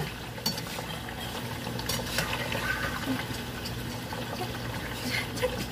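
Food cooking on the stove: a steady sizzling, bubbling hiss with a few faint clicks.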